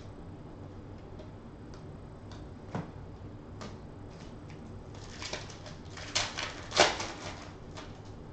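Small ticks of trading cards being handled, then from about five seconds in the crackling and tearing of a foil card pack being ripped open, loudest near the end.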